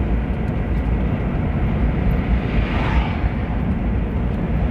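Steady road and engine rumble inside a moving car, with another car swishing past about two and a half seconds in and a second one approaching near the end.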